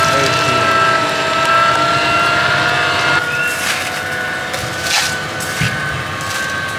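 Electric blender motor running with a steady whine whose pitch creeps slightly upward, and a couple of short knocks about five seconds in.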